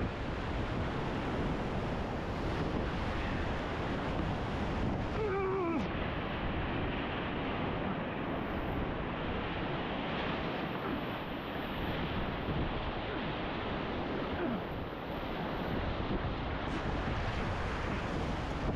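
Big-water whitewater rapid rushing and crashing around a canoe as it runs through the waves, a steady, loud wash of breaking water.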